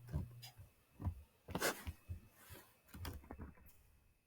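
Faint scattered clicks and a brief soft rustle, a few short taps spread over several seconds.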